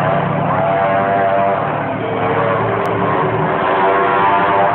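Motorcycle engine running and revving, its pitch climbing, dropping back about two seconds in and climbing again near the end.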